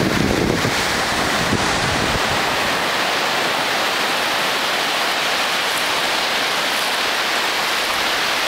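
Small ocean waves breaking and surf washing up over a flat sandy beach, a steady hiss of foam and water. Wind buffets the microphone with a low rumble for the first half-second.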